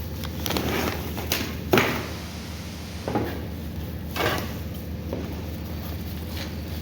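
Unboxing and handling of a packed kitchen utensil rack: a series of short scrapes and knocks, the loudest about two seconds in.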